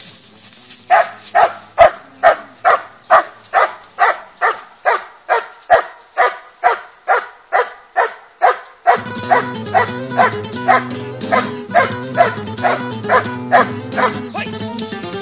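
A dog barking over and over at an even pace, about two barks a second: the steady guard bark of protection training, aimed at a helper holding a bite sleeve. From about nine seconds in, guitar music grows louder under the barks.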